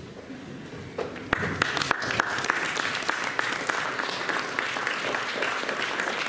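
Audience applauding, the clapping starting about a second in and then carrying on steadily.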